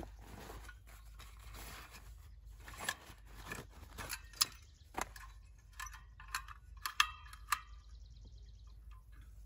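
Rustling of a fabric drawstring pouch, then a scatter of sharp clicks and light metallic clinks as a folding portable gas stove is taken out and handled, the loudest clink about seven seconds in.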